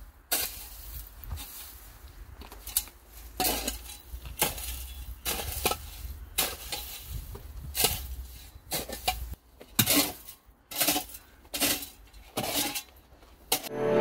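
A long-handled garden tool scraping through dry grass and gravel on a grave plot in repeated, irregular strokes, about one or two a second.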